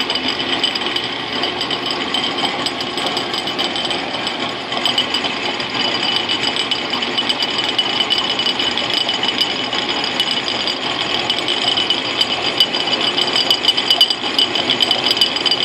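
Logan lathe running with an end mill in its collet milling the tool-post nut block, fed by hand: a steady high whine with a fast rattling chatter that grows stronger in the later seconds.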